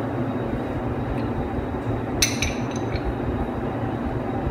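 A steady low hum, with one light clink of crockery about two seconds in, followed by a few fainter taps.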